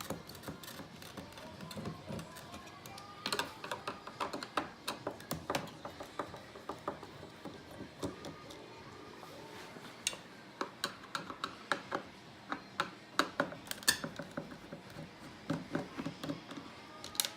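Screws being taken out around the outside of a pachinko machine's frame: irregular clicks, taps and small clatters of a screwdriver and handled metal and plastic parts.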